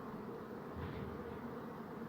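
Bees buzzing steadily, a continuous drone of wingbeats, with a brief louder swell of buzz near the middle.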